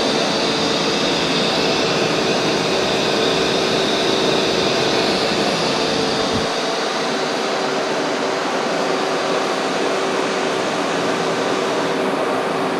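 Steady machinery hum and hiss in a machine shop, with a constant tone running through it; the low rumble underneath drops away about six and a half seconds in.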